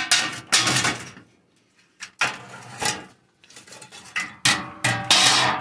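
Thin sheet-metal cover of a fluorescent shop-light fixture being pried up and lifted out, clanking and scraping against the steel housing in a series of rattles, the loudest near the end.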